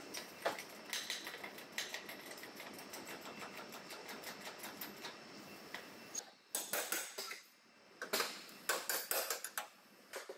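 Rapid, irregular clicking and ticking, dense at first and breaking into short clusters of clicks with quiet gaps over the last few seconds.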